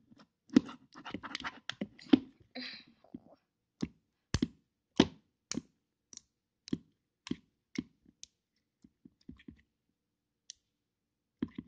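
Fingers poking and pressing soft grey slime in a round tub, making a run of short wet clicks and pops. They come close together at first, then as single pops about every half second, thinning out near the end.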